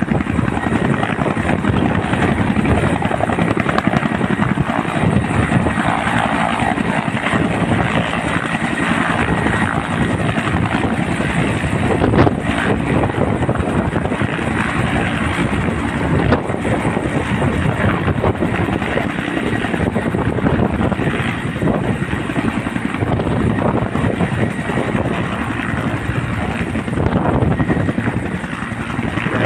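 Bell 212 twin-turbine helicopter hovering low and settling to land. Its two-bladed main rotor and turbines run loud and steady throughout.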